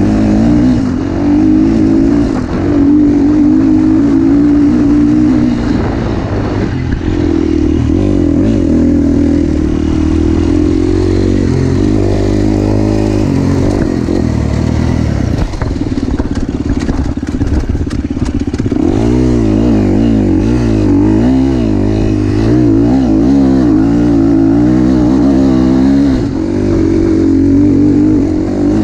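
KTM 350 SX-F single-cylinder four-stroke motocross engine, heard close up from the bike, revving up and falling back over and over as it is ridden around a dirt track. About halfway through the engine note breaks up into a rougher stretch of clatter from the bike over bumps.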